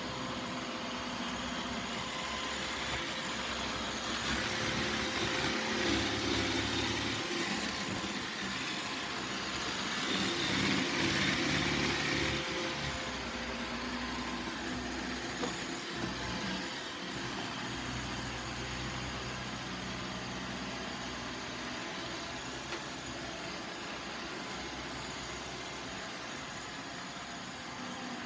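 iRobot Roomba 675 robot vacuum running, its motor and brushes making a steady whirring noise that swells louder twice in the first half.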